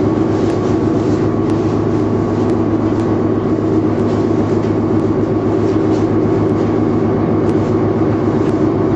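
Steady engine drone with a constant low hum, even and unchanging throughout.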